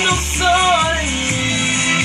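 Music with a low, pulsing bass beat, about two pulses a second, under a wavering melody line.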